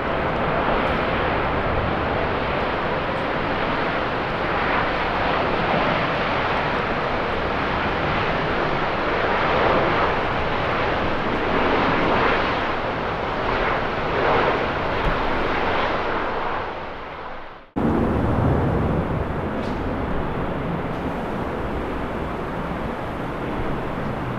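Jet airliner engines passing, a loud rushing roar that swells and shifts in pitch, with wind noise. About two thirds of the way through it fades and cuts off abruptly, replaced at once by a different stretch of jet and wind rumble.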